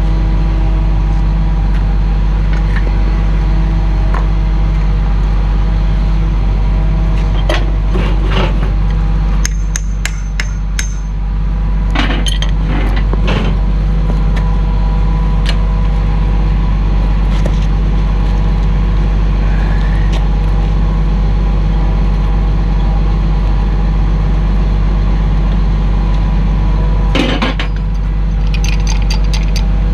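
Engine running steadily at a constant speed, with sharp metallic clinks and knocks from tools and fittings at intervals, including a cluster of rapid clicks near the end.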